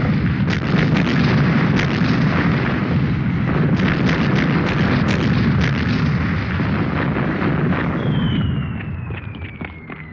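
Aerial bombing: a dense, continuous barrage of bomb explosions, a heavy rumble packed with many sharp blasts. About eight seconds in the blasts thin out and a long whistle, falling slowly in pitch, sets in.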